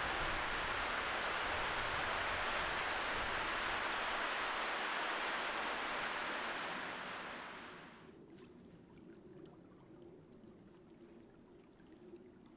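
Steady rush of shallow water running along a sandstone slot canyon floor, which drops away about eight seconds in, leaving faint quiet ambience.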